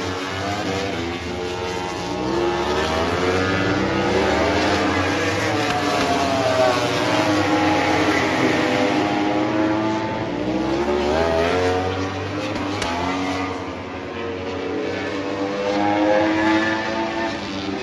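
MotoGP racing motorcycles lapping the circuit, more than one at a time, their engines revving hard with the pitch rising and falling as they accelerate, shift gear and brake for corners. The sound swells as they pass, loudest in the middle and again near the end.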